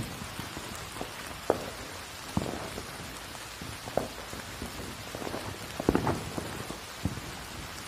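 Steady rain falling on a surface, with a few sharper, louder hits scattered through it.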